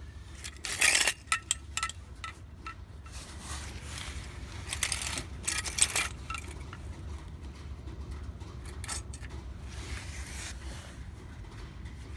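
Metal clinking and clattering, as when steel tools or jack parts are handled, in three bursts: about a second in, around five to six seconds in, and around nine to ten seconds in. A low steady hum lies beneath.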